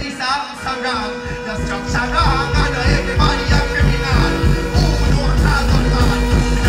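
Live dancehall music played loud through a stage sound system: a male deejay's voice over a heavy, regular bass beat that grows fuller about two seconds in.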